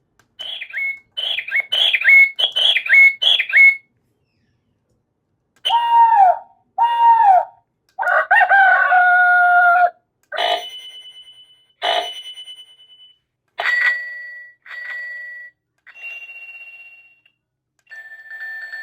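Wireless doorbell receiver playing one chime tune after another, with short gaps between them. First comes a run of about seven quick electronic chirps. Then two falling tones, a held chord, and several single bell-like dings that ring out and fade.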